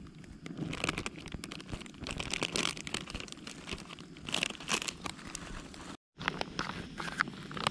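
Foil-lined plastic snack wrapper crinkling and tearing as hands pull it open, in many short irregular crackles. It breaks off in a moment of silence about six seconds in, then more packet rustling follows.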